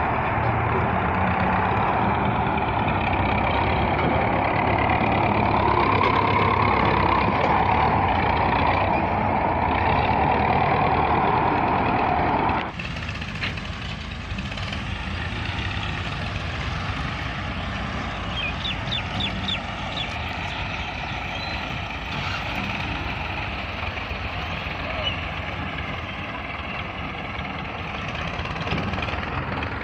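MTZ-50 front-loader tractor's diesel engine running hard under load as it works the bucket. Partway through, the sound drops abruptly in level and tractor diesel engines go on running more quietly.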